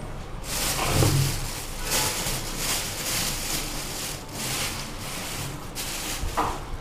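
Thin plastic carrier bag rustling and crinkling as it is handled, in a string of crackling bursts that stop about six seconds in.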